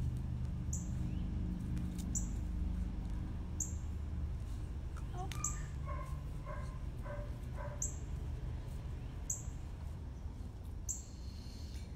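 A few faint, short, squeaky animal calls, clustered around the middle, over a steady low hum.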